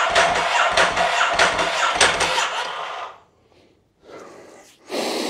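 Ducati Hypermotard 1100 S air-cooled L-twin turning over on its electric starter without firing, because there is no fuel in it yet. It cranks in an even beat of about two to three compression strokes a second, then winds down and stops about three seconds in. A short burst of noise follows near the end.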